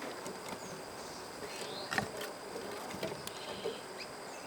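Insects chirping steadily at a high pitch, with a few scattered small clicks and knocks.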